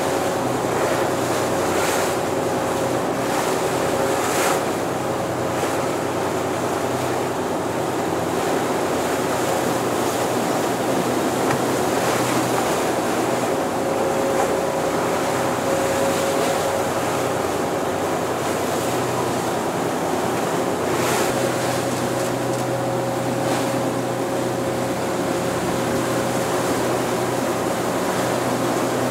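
Choppy sea water rushing and splashing, with wind noise on the microphone and a steady motor hum underneath.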